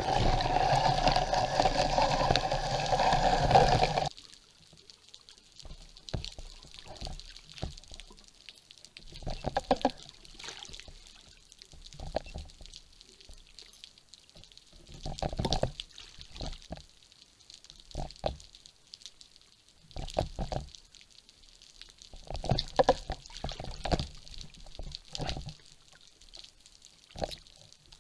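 Underwater sound picked up by a diver's camera. A loud, dense rush fills the first four seconds and cuts off suddenly. After it come quiet stretches broken by irregular sloshes of water and short knocks against the gear.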